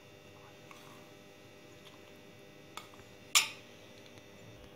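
Metal spoon knocking against a glass bowl while gram flour is tipped in: about three seconds in, a light tap and then a sharper clink, over a faint steady electrical hum.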